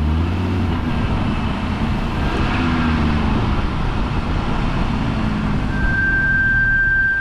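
2023 Audi RS Q3's brakes on a brand-new car, rolling with road and running noise. About six seconds in, a steady high-pitched squeal starts, holding one pitch.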